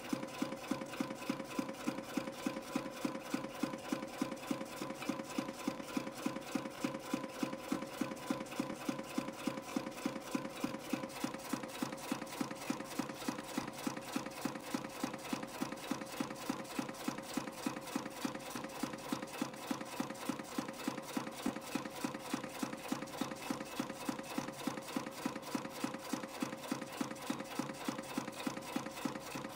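CNC spring coiling machine forming 0.35 mm wire into compression springs at about 200 a minute: an even, fast clicking, about three strokes a second as each spring is coiled and cut off, over a steady machine hum.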